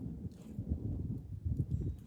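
Wind buffeting the microphone: an irregular low rumble with gusty swells.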